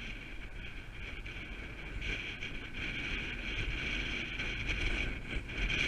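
Wind buffeting the microphone, a steady low rumble with an even hiss above it that grows a little louder about two seconds in.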